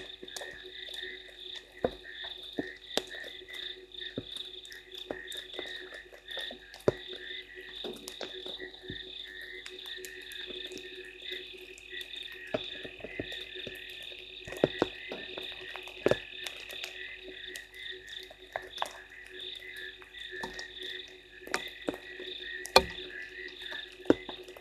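A chorus of many frogs calling at a waterhole at night: a dense, pulsing high trill with a lower steady calling beneath it. Scattered sharp ticks of raindrops fall throughout, one louder one near the end.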